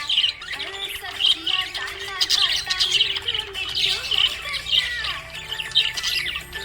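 A group of budgerigars chirping and squawking in busy, overlapping chatter of short high chirps and warbles.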